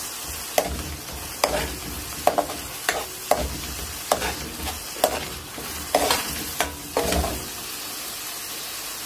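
Metal slotted spoon scraping and clinking against a metal karahi while stirring chicken in masala frying over the steady sizzle of oil. The strokes come at an uneven pace and stop about three-quarters of the way through, leaving only the sizzling.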